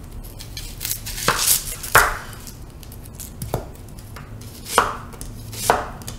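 Kitchen knife slicing a yellow onion on a wooden cutting board: about six separate cuts at an uneven, unhurried pace.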